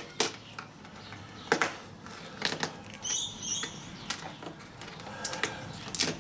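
Hand deburring tool scraping the edge of a freshly hole-sawn hole: a string of short, irregular scrapes and clicks, several a second.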